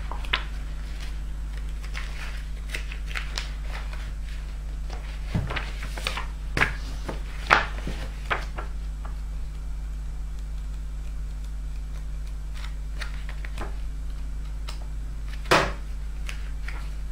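Pages of an issue of L'Écran Fantastique film magazine being leafed through by hand: paper rustling with scattered sharper page flicks, the loudest about seven and a half seconds in and near the end. A steady low hum runs underneath.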